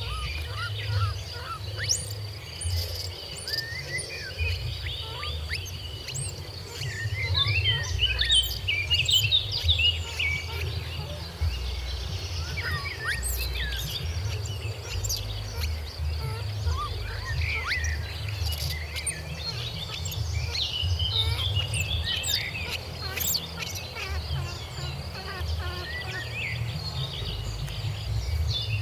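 Outdoor chorus of many short, high chirping calls over a steady high-pitched insect drone, with a low rumble underneath.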